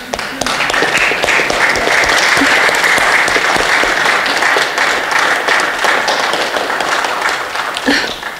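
Congregation applauding, many people clapping at once; the applause dies away near the end.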